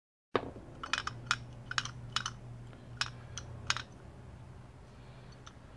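Light metallic clicks and taps as a small screwdriver drives the float-pin retaining screw on an S&S carburetor and the carburetor body is handled on the bench. The clicks come in an irregular string and thin out after about four seconds, over a faint low hum.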